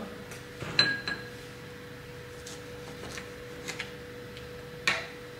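Light kitchen clinks and taps as an orange is cut in half with a knife beside glass bowls on a wooden tray: one ringing, glassy clink about a second in, a few faint ticks, and a sharper tap near the end. A faint steady hum sits underneath.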